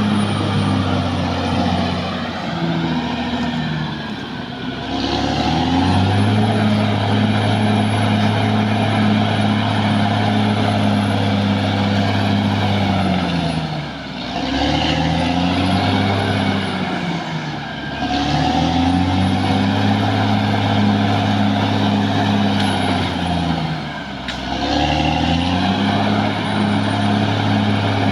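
Caterpillar D6R XL bulldozer's diesel engine working hard, its revs running high and steady and then sagging briefly and climbing back, four times. A thin high whine rises and falls with the engine.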